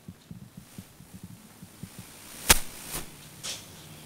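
Dry dog-food pellets being handled and mixed in a stainless steel bowl: low rustling and small ticks, with a sharp clink about two and a half seconds in and two lighter ones just after.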